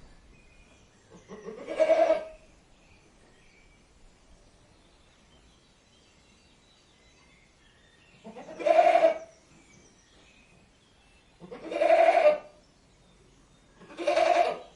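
Goat bleating four times, each call about a second long. The first comes about a second in, then a pause of about six seconds, then three more calls about three seconds apart, the last near the end.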